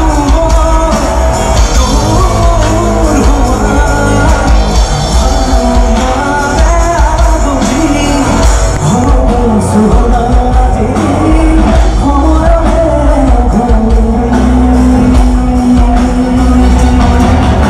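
Live rock band concert heard from the crowd: a male singer over electric guitars, drums and heavy bass, with a long held note near the end.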